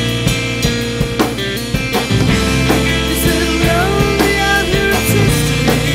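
Punk rock band recording: distorted electric guitars and a drum kit playing steadily, with a melodic line bending in pitch in the middle.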